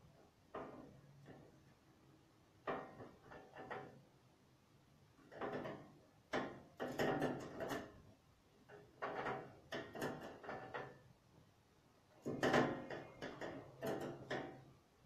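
Irregular bursts of knocks, clicks and scrapes from someone handling things out of view, in about six clusters, the loudest around seven and twelve and a half seconds in.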